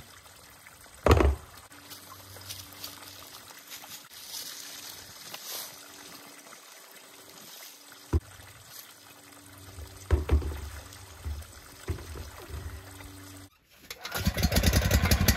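Spring water trickling and pouring from a tank's spigot, with a few knocks as a submersible pump and its hose are handled. Near the end a portable generator's engine runs loudly.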